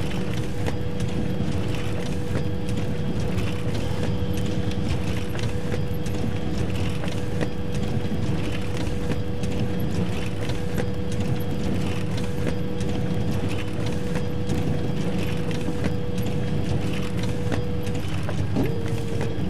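Photocopier running: a steady mechanical whir and clatter with a constant hum. Near the end the hum breaks off briefly and returns at a slightly different pitch.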